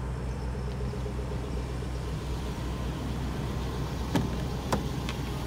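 Steady low hum of an idling car engine. A little after four seconds in come two sharp clicks, half a second apart, as the driver's door latch is opened.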